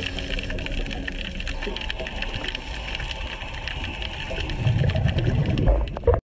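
Underwater ambience picked up by a camera in its housing: a dense crackle of small clicks over a low rumble. The rumble grows louder over the last second and a half, then the sound cuts off abruptly.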